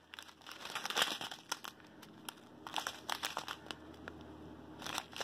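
Small plastic bags of diamond painting drills crinkling in short, irregular bursts as they are handled and shuffled by hand.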